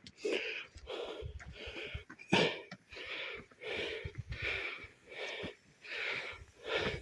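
Heavy rhythmic breathing, short hard breaths about twice a second, like panting under exertion. There is a single sharp knock about two and a half seconds in.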